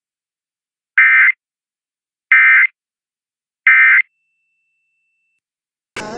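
Emergency Alert System end-of-message (EOM) code: three short, identical buzzy digital data bursts about a second apart, each about a third of a second long, signalling the end of the test alert. Programme audio cuts in abruptly at the very end.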